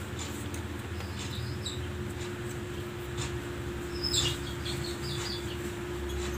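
Faint bird chirps, two short clusters of quick high tweets about a second in and about four seconds in, over a steady low hum.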